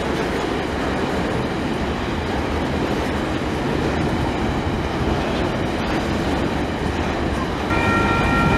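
Freight train of hopper wagons rolling past close by: a steady, loud rumble and rattle of steel wheels on the rails. Near the end a train horn starts up, a steady chord of several tones.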